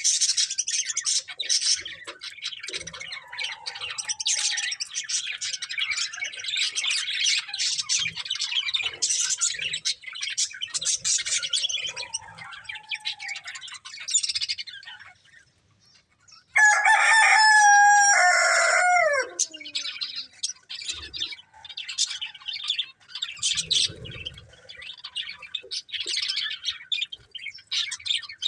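Budgerigars chattering and chirping in quick, high twitters. About halfway through, the chatter breaks off briefly, then a single loud, drawn-out call of about three seconds, falling in pitch at its end, stands out as the loudest sound before the chirping resumes.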